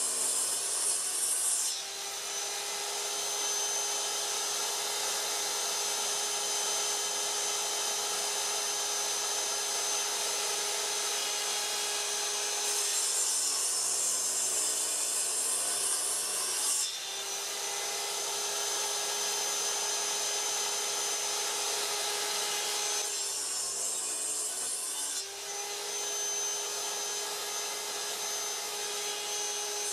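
Metabo sliding miter saw running continuously, its blade working a round wooden disc. Stretches of steady motor and blade whine alternate with harsher, louder hissing stretches as the blade bites into the wood, about halfway through and again near the end.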